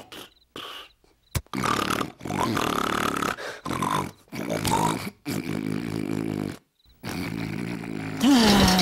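A cartoon man's exaggerated snoring: a run of about seven loud snores, some with a whistling tone, broken by short silent gaps.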